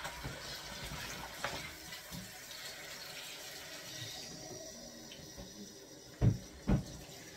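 Kitchen tap running into a sink, easing off about four seconds in, then two quick low thumps close together near the end.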